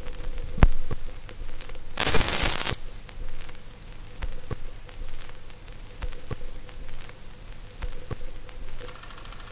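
Scattered sharp clicks and knocks at uneven intervals, with a short burst of noise about two seconds in, over a faint steady hum.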